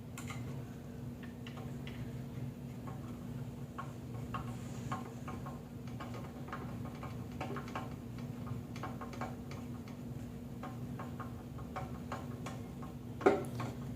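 Screwdriver tightening the screws on a lever espresso machine: a run of small, irregular clicks and ticks, with a sharper click near the end, over a steady low hum.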